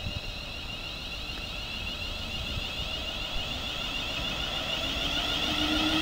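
London Midland Class 350 Desiro electric multiple unit passing close by, its traction equipment giving a high, steady whine that grows louder. A lower tone rising in pitch near the end marks the train gathering speed.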